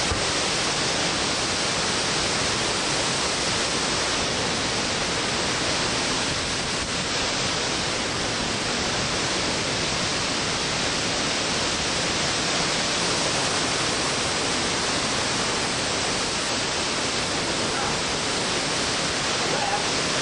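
Category three hurricane wind with heavy wind-driven rain, a dense, steady rushing noise that never lets up.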